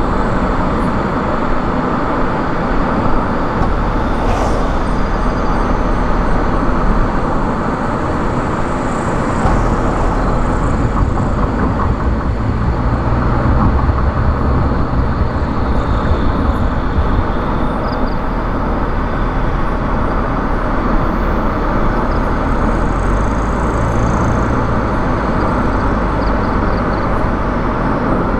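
Car driving at highway speed: steady tyre and road rumble with the engine's low drone, the bass swelling a little at times.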